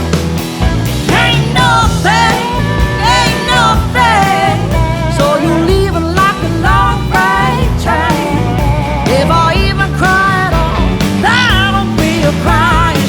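Country-rock band music with no sung words: a lead line of bent, wavering notes over bass and a steady drum beat.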